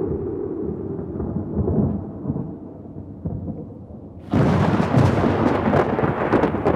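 Thunder: a low rolling rumble dies down over the first four seconds, then a sudden, loud, crackling thunderclap breaks a little past four seconds in and goes on rumbling and crackling.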